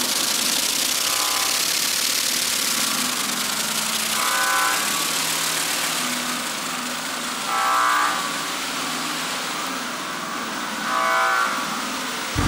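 A fan blowing steadily, a constant airy rush, with four short buzzy square-wave synthesizer tones sounding about every three seconds.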